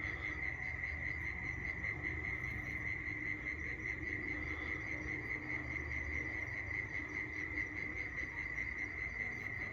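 Steady chorus of insects, one continuous high-pitched trill that does not change, with a faint low rumble beneath it.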